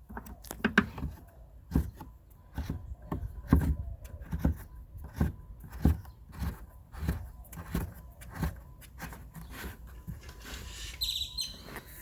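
Irregular plastic clicks and knocks from hands fitting a bulb socket back into a 2011 Dodge Challenger's taillight housing, with a brief high squeak near the end.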